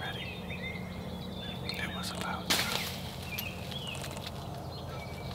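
Low whispered talk, with a short, sudden rush of noise about two and a half seconds in. A few faint bird calls are also heard.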